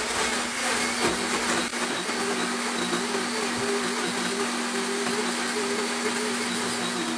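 Kitchen blender running steadily while making a milkshake, its motor note wavering slightly as the contents churn.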